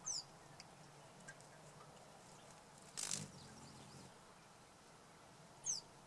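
Small bubbling stone fountain running faintly with a low pump hum, while a Calliope hummingbird bathes at its rim. A brief flutter of wings comes about three seconds in, and two short, high, falling bird chirps sound, one at the start and one near the end.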